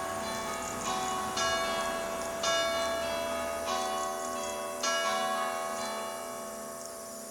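Church bells ringing, several bells of different pitch struck one after another at roughly one stroke a second, each ringing on under the next. The ringing fades away over the last couple of seconds.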